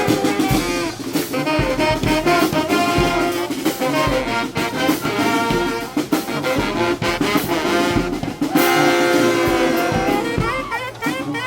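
A street band playing live: brass horns sounding together over a steady drum beat.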